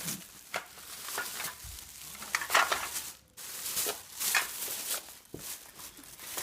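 Plastic packaging crinkling and small toy dishes clicking as a set of play-kitchen dishes is opened, in irregular rustles with a short pause about three seconds in.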